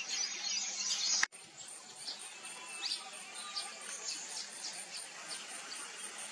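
Short, thin, high chirps of vernal hanging parrots, some rising in pitch, scattered over a steady insect chorus that pulses about four times a second. A dense insect buzz cuts off abruptly about a second in.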